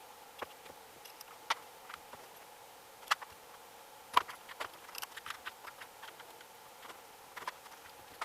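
Spline roller pressing the rubber spline and screen mesh into the channel of a screen door frame: scattered light clicks and taps at an uneven pace, the sharpest about three and four seconds in.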